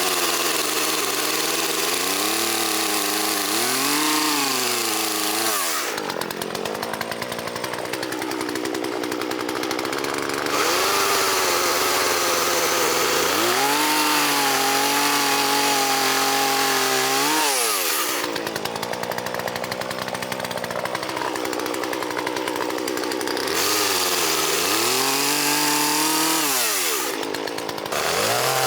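Poulan Pro PR4218 two-stroke chainsaw revved up and let back down several times. Its engine pitch climbs and holds high for a few seconds, then falls sharply when the throttle is released.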